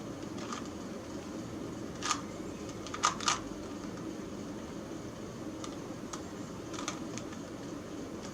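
Plastic clicks and clacks of a Rubik's Cube's layers being turned by hand: a few sharp clacks about two and three seconds in, and fainter ones later, over a steady low background hum.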